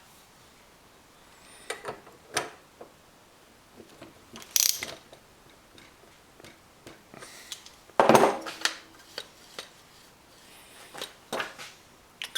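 Scattered clicks, clinks and knocks of faucet parts and tools being handled, with the loudest knock about eight seconds in and a brief ring after it.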